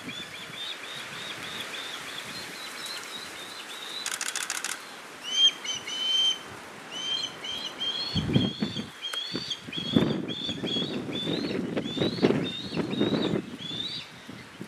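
Osprey fledgling begging: a long run of short, high, whistled chirps, about four or five a second, each slurred slightly upward, growing louder after a few seconds. Low gusts of wind noise come in during the second half.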